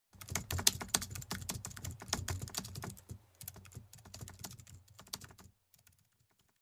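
Rapid keyboard typing clicks, dense for about three seconds, then thinning out and stopping about five and a half seconds in, with a few scattered clicks after.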